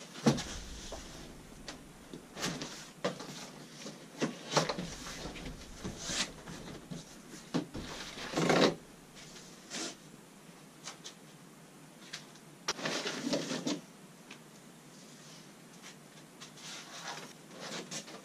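A large cardboard bike box is set down with a thud, then opened and unpacked: cardboard scraping and rustling, with knocks as foam-wrapped parts are lifted out.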